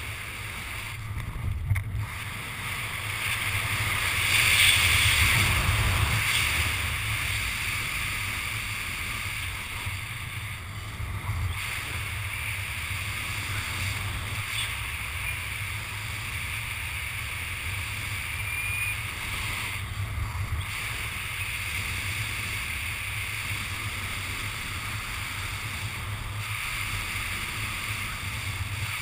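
Airflow rushing over a head-mounted camera as a skydiver descends under an open parachute canopy: a steady wind rush with a low rumble, swelling for a couple of seconds about four seconds in.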